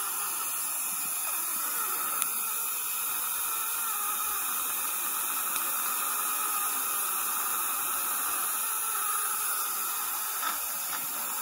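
Steady hiss of dental suction drawing air through the tubing of a Nola dry-field cheek retractor, with one faint click about two seconds in.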